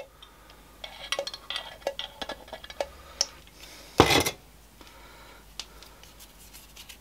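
Pump oil can's lever clicking repeatedly as oil is squirted onto the sides of a lathe chuck body, then a loud knock about four seconds in as the oil can is set down on the workbench.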